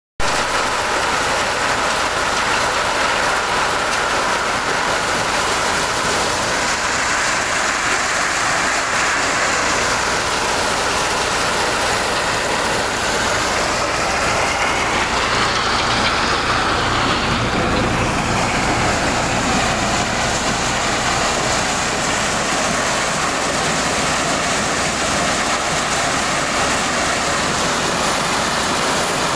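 Tractor-driven maize thresher at work: the threshing drum and the tractor's diesel engine run together as a steady, loud machine noise, with the engine's low hum coming up for a few seconds around the middle.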